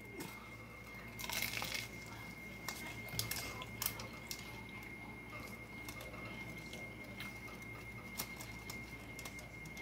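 Biting into and chewing a crunchy Taco Bell toasted cheddar chalupa: a crunch about a second in, then faint chewing with scattered small crackles.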